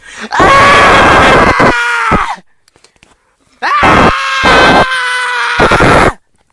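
A person screaming twice, each a long, very loud scream held for about two seconds on a steady, slightly falling pitch.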